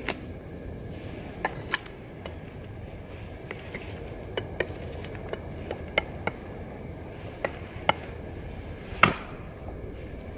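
Bark River Bravo Crusader chopping knife hacking into a dead wooden stick: about fifteen sharp, unevenly spaced chops, the loudest near the end.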